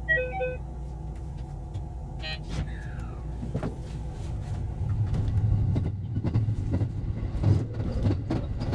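Running noise of a JR West 223 series electric train heard from the driver's cab, played back at four times speed: a low rumble with rapid clicks that grows louder from about halfway, with a brief falling tone a little before that.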